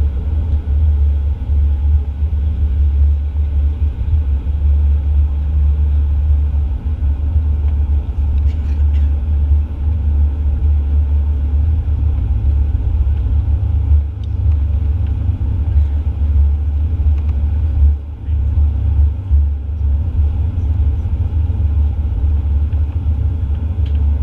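Cabin noise of a Boeing 737-800 taxiing, heard from a window seat beside the wing: its CFM56-7B engines are at low taxi power, and there is a steady deep rumble.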